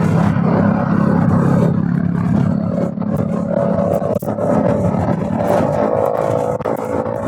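Bajaj Pulsar NS200 single-cylinder engine running steadily through its stock exhaust while the bike is ridden, over road and wind noise.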